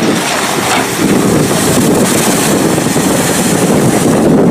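Amphibious tour bus driving into the water and cruising through it: a steady rush of engine and spray from the hull, with wind buffeting the microphone.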